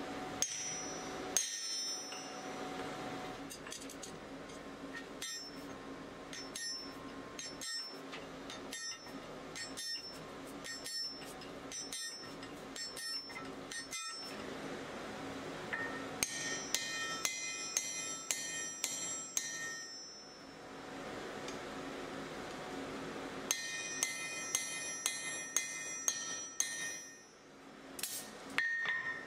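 Hammer blows on a punch driven into a glowing steel axe blank on an anvil, opening the axe's eye. First a long run of dull strikes about every half second to second, then two quicker runs of about two blows a second that ring like a bell.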